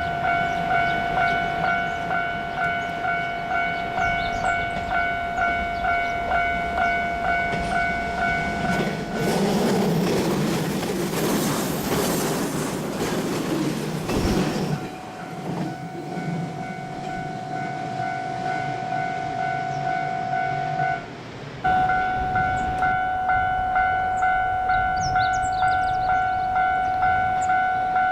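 Japanese level-crossing alarm ringing a steady electronic pulse. About nine seconds in, an electric commuter train passes over the crossing, its rumble and wheel noise swelling for some six seconds and then fading, while the alarm keeps ringing.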